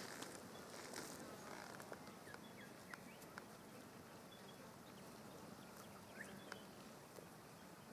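Near silence: faint outdoor ambience with a few brief, faint chirps and scattered soft clicks.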